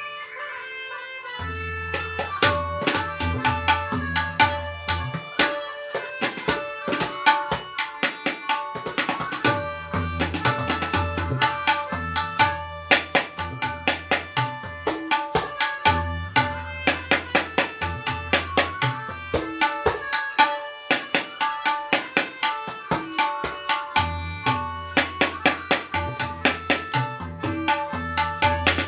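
Tabla solo in teentaal: fast, dense strokes on the dayan with deep resonant bayan strokes that come and go in stretches, and held melodic notes sounding underneath. The playing thickens about a second and a half in.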